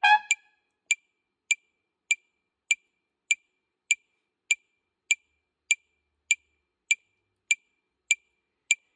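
Metronome clicking evenly at about 100 beats a minute. A short trumpet note sounds and cuts off right at the start.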